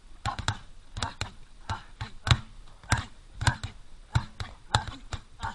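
Boxing-gloved fists pounding a large rubber tyre lying on the ground: an uneven run of dull thuds, two or three a second, with one much louder hit a little over two seconds in.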